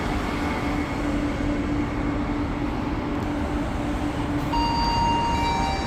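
Israel Railways double-deck passenger train pulling out of the platform: a steady rumble of the cars rolling past with a low hum. About four and a half seconds in, several high steady whining tones join in, stepping in pitch.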